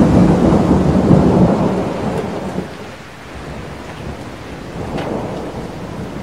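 A roll of thunder rumbling and dying away over the first three seconds, leaving steady rain with a single sharp tick about five seconds in.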